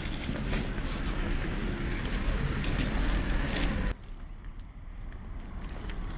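Traxxas TRX-4 scale RC crawler's brushed 550 electric motor and drivetrain running, with its tyres crunching and clicking over rocks, with a low rumble like wind on the microphone. About four seconds in the sound cuts abruptly to a quieter stretch.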